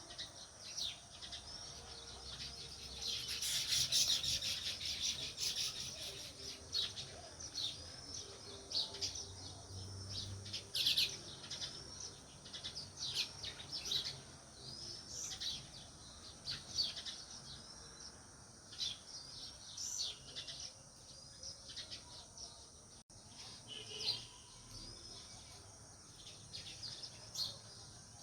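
House sparrows chirping, many short repeated chirps overlapping, busiest about three to five seconds in and again around eleven seconds.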